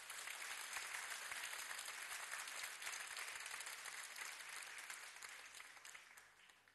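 Audience applauding, many people clapping at once; the applause fades away near the end.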